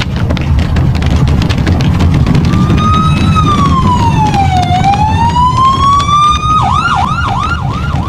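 An electronic siren comes in about two and a half seconds in. It makes one slow wail down in pitch and back up, then near the end switches to a fast yelp of about two to three sweeps a second. Under it runs a loud low rumble with many clicks.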